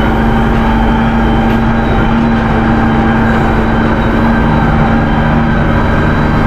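Valmet 1280 tractor's diesel engine running at steady revs while pulling a soybean planter, a constant deep drone.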